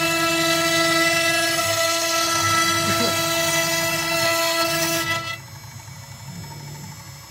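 CNC router spindle whining steadily while its bit engraves letters into a wooden board, with a hissing rasp of cutting over the whine. About five seconds in the sound drops sharply in level and the high cutting hiss falls away.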